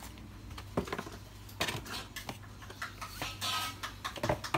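Cardboard box and foam packaging handled as a graphics card is lifted out: a few light knocks and a short scrape.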